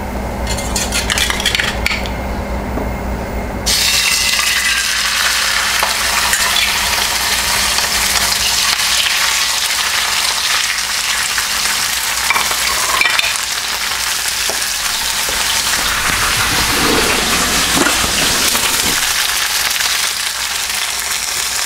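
Grouper fillets sizzling as they are laid into hot olive oil in a stainless steel pan. The sizzle jumps to a loud steady frying hiss about four seconds in, with a few light knocks later.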